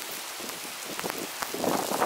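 Shallow seawater streaming over a sand flat: a steady hiss with a few faint crackles, swelling slightly near the end.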